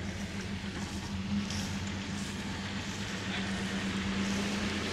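A vehicle engine running steadily at idle, a constant low hum.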